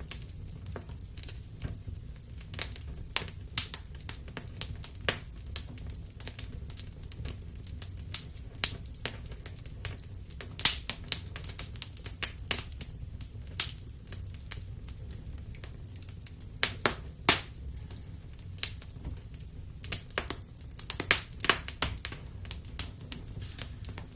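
Wood fire in a fireplace crackling: irregular sharp pops and snaps, some clustered in quick runs, over a steady low rumble of the flames.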